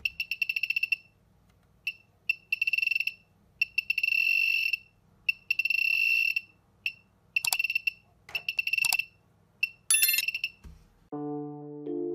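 Piezo buzzer of a homemade Arduino metal detector beeping in irregular bursts of one high tone, some short and some held for about a second, as metal is held over its search coil: the detector signalling metal. Background music comes in near the end.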